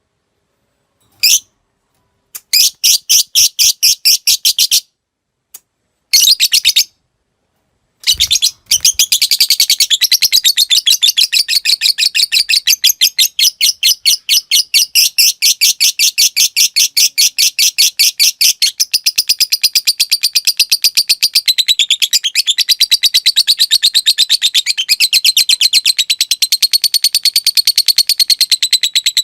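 Lovebird chattering: a few short bursts of fast, high clicking trills, then from about eight seconds in one long, unbroken rapid chatter. This is the 'ngekek panjang' (long ngekek) call that such recordings are made to teach other lovebirds.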